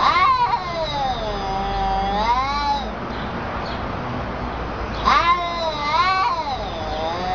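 Cat yowling in a face-off with another cat: two long, wavering caterwauls, the first about three seconds long at the start and the second starting about five seconds in. These are drawn-out threat yowls of a territorial standoff.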